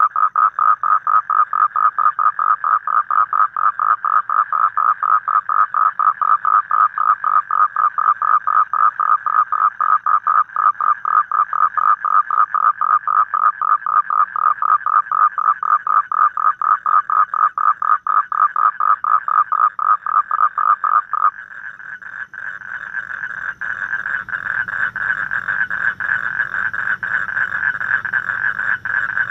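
Toad calling: a long trill of rapid, evenly spaced pulses held at one pitch. About twenty seconds in it cuts off abruptly and a higher-pitched, smoother trill takes over.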